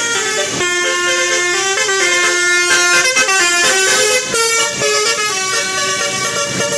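Indonesian bus 'telolet' musical horn playing a tune: several horn tones sound together as held notes that step up and down in pitch.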